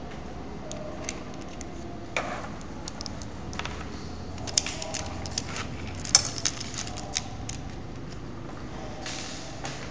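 Small parts of a bolt-together model construction kit clicking and clinking as fingers fit a bracket, bolt and nut together, with brief rustles of handling. The clicks come scattered and irregular, most of them and the sharpest about halfway through.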